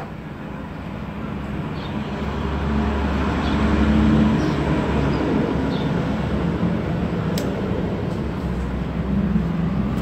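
A motor vehicle's engine runs close by, a low steady rumble that grows louder over the first four seconds and then holds, with a sharp click about seven seconds in.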